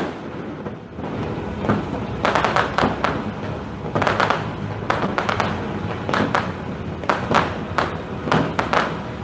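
Fireworks going off in a string of irregular sharp pops and bangs, about a dozen over several seconds, starting about two seconds in.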